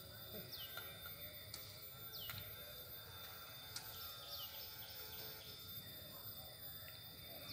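A bird repeating a short call that slides sharply down in pitch, about every one and a half to two seconds, once followed by a brief trill, over faint steady background hum and a couple of light clicks.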